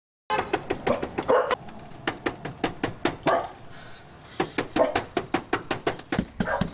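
A dog barking in rapid, repeated short barks, starting abruptly.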